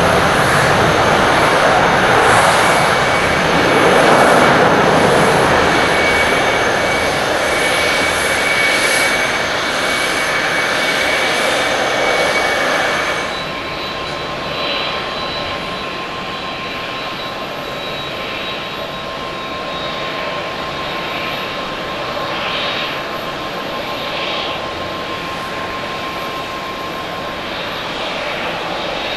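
Twin jet engines of an Airbus A330-200 running as the airliner taxis, a loud roar with a steady high whine. About 13 seconds in, the sound cuts to the quieter, steady roar and whine of a Boeing 767-300(ER)'s engines as the jet descends on final approach to land.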